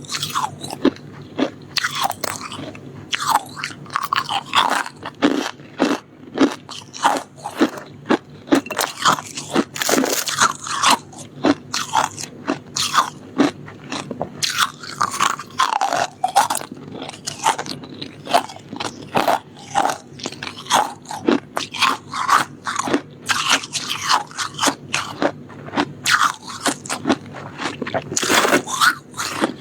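Close-miked crunching and chewing of soft shaved ice, bite after bite, several sharp crunches a second.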